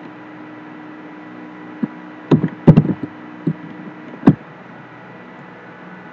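Several separate sharp clicks of computer keys and a mouse button being pressed while a search is typed, a cluster of them a little before the middle and a last one after it, over a steady low hum.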